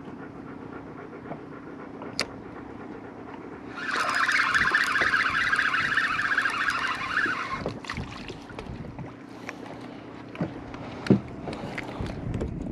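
Spinning reel being cranked for about four seconds, a fast whir of its gears as the line is reeled in. A few light knocks come before and after it.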